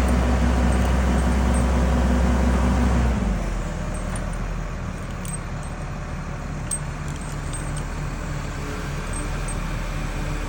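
Heavy machinery engine running at high revs, then throttling down to a lower, quieter idle about three seconds in, with a few light clicks afterwards.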